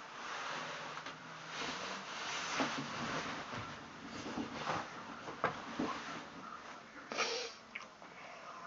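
A man breathing noisily and rustling the bedding and his clothes as he shifts about in bed, with a sharper rustle about seven seconds in.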